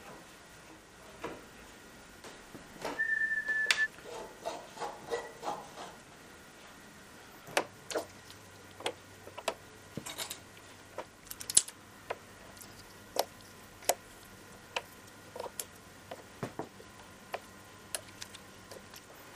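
Scattered light clicks and knocks of tools and parts being handled at a workbench, busiest a few seconds in, with one steady high tone lasting about a second about three seconds in.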